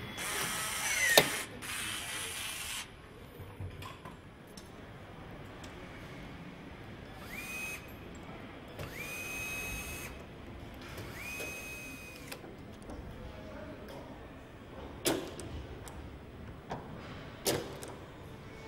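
Cordless drill-driver driving screws into a car body: three short runs of about a second each, each spinning up to a steady whine and stopping. Near the start a burst of tool noise ends in a loud sharp click, and a few sharp knocks come later.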